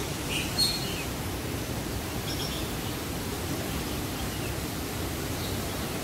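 Steady rush of a small aviary waterfall, with a few short bird chirps in the first second, the loudest about half a second in, and fainter chirps about two seconds in.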